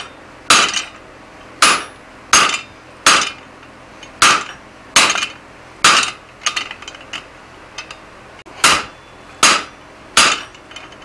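Hand hammer striking the top die of a blacksmith's guillotine tool on the anvil: about a dozen sharp, ringing blows at roughly one a second, with a short run of lighter taps a little past halfway. The blows drive the dies into a hot steel bar to set in the shoulders of a hammer head.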